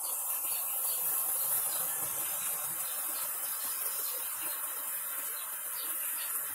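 Homemade sugar-and-potassium-nitrate smoke grenade burning with a steady hiss as it pours out white smoke.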